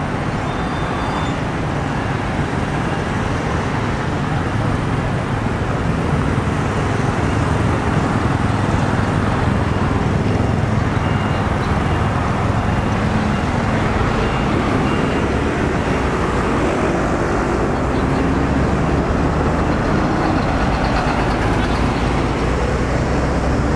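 Steady city street traffic noise: road vehicles passing with a low engine rumble, growing a little louder about six seconds in.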